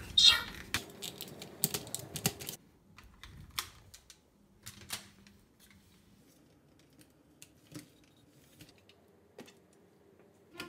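Hard plastic Tobot robot toy parts clicking and snapping as pieces are fitted together and handled. The clicks come thick in the first couple of seconds, then scattered and sparse.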